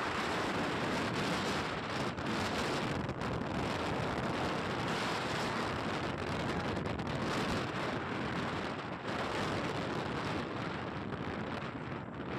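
Steady rushing of wind over the microphone on a moving bike, with no breaks or separate events.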